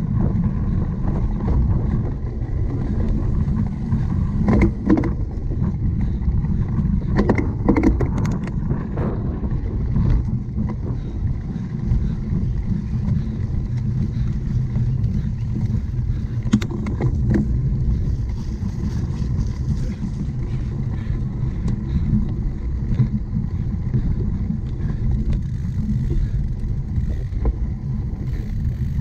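Wind rumbling across the microphone of a camera on a cyclocross bike rolling over rough ground, with a few short rattles and clatters from bumps.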